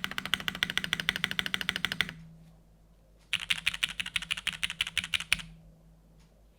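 Fast typing on a TGR Jane v2 CE mechanical keyboard with Cherry MX2A Orange switches, GMK Foundation keycaps and a carbon-fibre plate: a rapid run of key clacks that stops about two seconds in. After a pause of about a second comes a second run of about two seconds, then only a few faint clicks.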